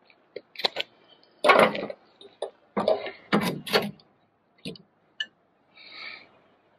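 Steel extension spring being stretched with a hooked spring-puller rod and hooked onto the deck of a Kubota Z421 zero-turn mower: a series of metallic clicks and knocks, the loudest about one and a half seconds in, and a short scrape near the end.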